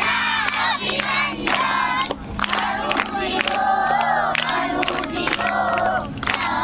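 A group of children and adults singing together in unison, with rhythmic hand clapping.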